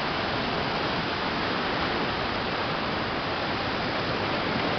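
River in flood, swollen by heavy rain, rushing fast through rapids and over boulders: a steady, unbroken whitewater rush.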